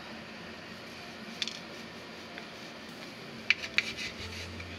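A kitchen knife cutting through a soft chocolate sponge cake, with a few sharp clicks of the blade against the ceramic plate about three and a half seconds in.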